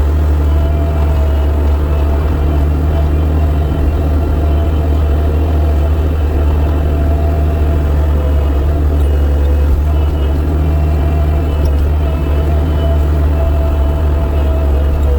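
Engine of a 60-horsepower snow-pushing machine running steadily, a deep constant drone.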